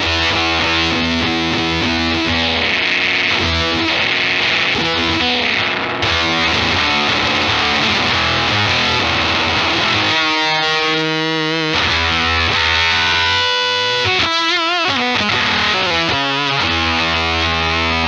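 Electric guitar played through a Death By Audio Apocalypse fuzz pedal in its Octave Rect mode: heavily distorted, sustained chords. About ten seconds in, the notes waver and bend in pitch for several seconds, then the steady chords return.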